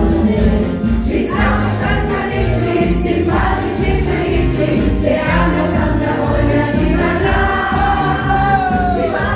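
Loud dance music with singing over a steady beat.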